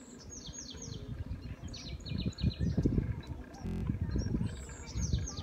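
A songbird singing short phrases of quick, falling chirps, near the start, again in the middle and near the end, over an uneven low rumble.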